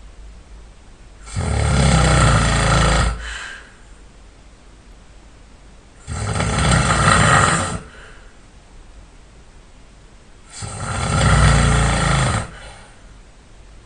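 A person snoring loud and hard: three long snores of about two seconds each, roughly every four and a half seconds, with much quieter breathing between them.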